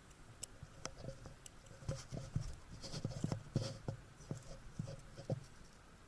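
A string of irregular light knocks and clicks, about fifteen in a few seconds and busiest in the middle, like small objects being handled and set down.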